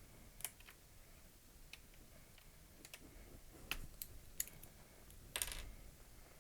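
Faint, scattered plastic clicks of a keycap puller gripping and prying a keycap off a key of a DaVinci Resolve Advanced Panel, with a longer clatter about five seconds in as the cap comes away.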